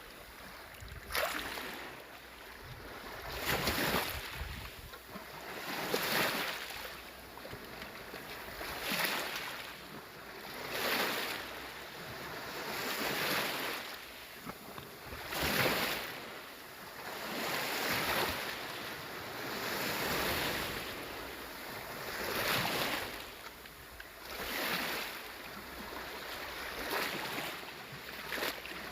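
Small sea waves washing onto the shore, a swell of surf about every two to three seconds.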